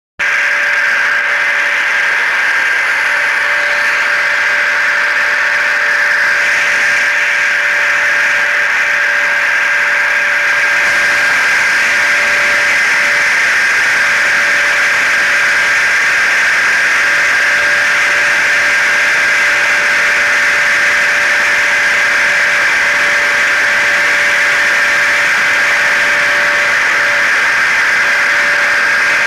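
Steady layered machine drone of a hair dryer, a car and a vacuum cleaner mixed as a white-noise track: a continuous even rush of air with a thin steady whine over it.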